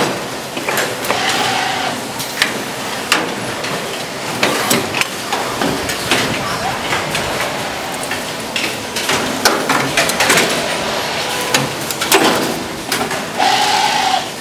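Automatic plastic seal-tag (lock string) moulding machines running, with irregular clicks and knocks over a steady noisy hiss, and two short steady tones, one about a second in and one near the end.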